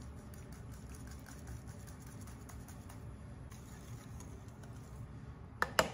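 Wire whisk beating runny cheesecake batter in a ceramic bowl: a faint, quick, continuous clicking of the wires against the bowl, with a few loud sharp knocks near the end.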